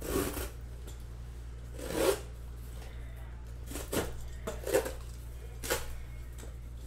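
Knife slicing the packing tape along the seams of a cardboard case, in about five short cutting strokes a second or so apart.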